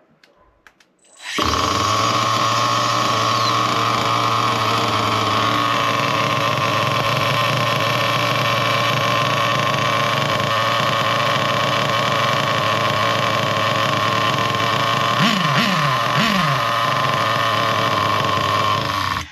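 Nitro RC car glow engine starting on its remote starter about a second in, then idling steadily, with three quick throttle blips near the end, before it cuts out abruptly. The low-speed needle is set well: a very good sounding low speed needle.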